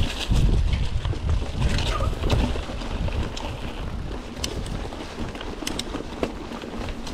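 A mountain bike ridden over a rough trail, heard from a chest-mounted camera: wind rumbles on the microphone, loudest in the first couple of seconds, with scattered sharp clicks and rattles.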